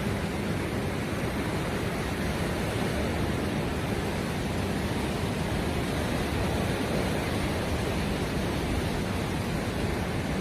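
Steady, even rushing noise of sea surf and wind at the shoreline, with no single wave crash standing out.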